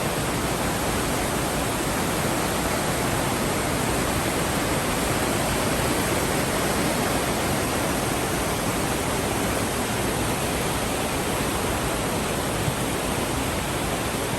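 Steady, even rushing noise with no distinct events, unchanging throughout.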